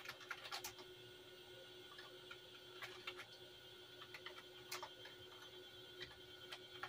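Computer keyboard being typed on slowly: scattered, irregular single key clicks with pauses between them, over a faint steady hum.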